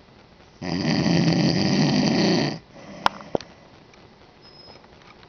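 A sleeping man snores once, a long snore lasting about two seconds. Two short sharp clicks follow a moment later.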